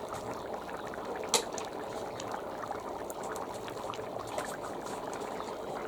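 Stew of beef and vegetables bubbling in a cast-iron kazan, a steady simmering noise with small crackles. A single sharp click about a second and a half in.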